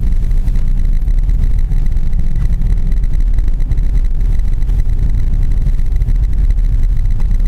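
Suzuki Grand Vitara driving slowly through deep snow, heard from inside the cabin as a steady low rumble of engine and tyres.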